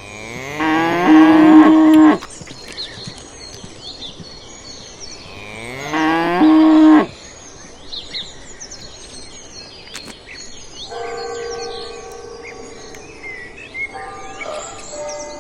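A cow mooing twice, each moo a loud call that rises in pitch and then holds, about five seconds apart, with birds chirping throughout. Softer steady tones come in over the last few seconds.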